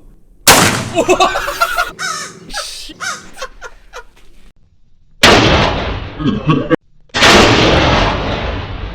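Shotgun blasts: a sharp, very loud shot about half a second in and another about five seconds in, each trailing off in a ringing echo, with a further loud burst after a short cutout near seven seconds.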